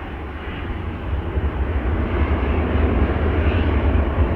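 Jet airliner's engines, a steady rumble that grows louder from about a second in.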